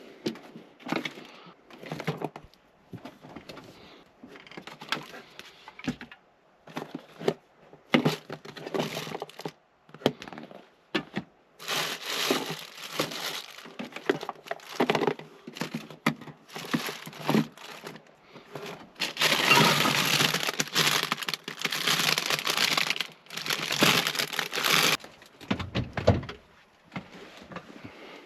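Handling noises in a small cab: scattered knocks, cracks and clicks, with stretches of crinkling, rustling noise. The longest and loudest rustle comes about two-thirds of the way through.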